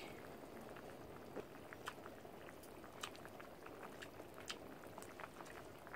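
Hotpot broth simmering faintly in a pan on a portable gas stove: a low steady hiss with scattered small bubbling pops.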